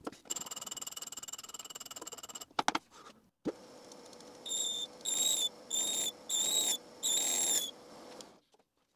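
Boley lathe running with a steady high-pitched whine, then a boring bar cutting inside a steel collet, with five short high-pitched squeals as the cuts go in. The footage is fast-forwarded.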